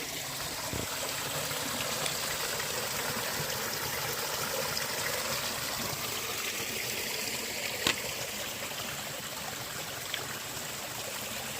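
A small woodland stream running over rocks, a steady rush of water, with a single sharp click about eight seconds in.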